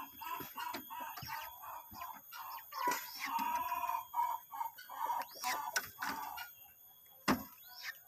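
A bird's clucking calls, a quick run of short notes that thins out after about six seconds, with one sharp knock near the end.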